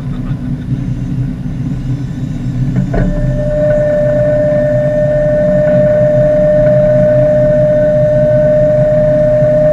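A boat engine runs with a steady low hum. About three seconds in there is a click, and a Shimano electric fishing reel's motor starts a steady high whine as it winds in line.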